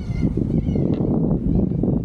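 Wind buffeting the microphone outdoors: a rough, uneven rumble.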